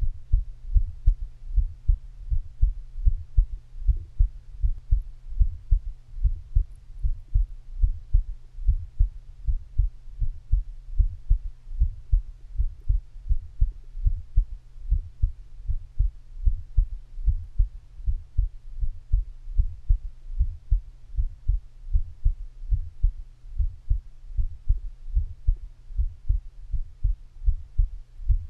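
A person's heartbeat heard through the belly: a steady, regular run of low thumps over a low hum.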